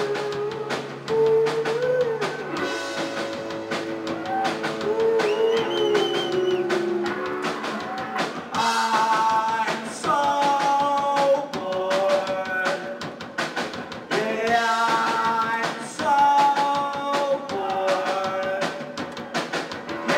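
Rock band playing live: electric guitar and drum kit with a man singing into a microphone over steady drumming.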